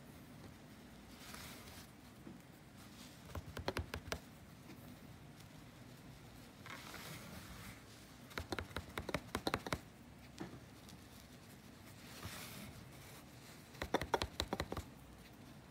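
A needle is worked over and under the taut warp threads of a kilim being reweaved. It ticks against the threads in three quick runs of clicks, and soft swishes of yarn being drawn through fall between them.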